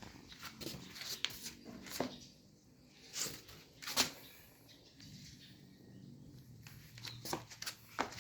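Faint, scattered rustles and sharp little clicks, a dozen or so at irregular intervals, with a few louder ticks about two, three and four seconds in and a quick cluster near the end.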